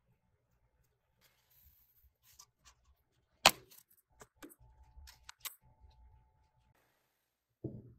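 Plastic clamshell strawberry container handled: the lid snaps open with one sharp click, then the thin plastic crackles and clicks for a couple of seconds as the box is held and turned. A dull thump near the end.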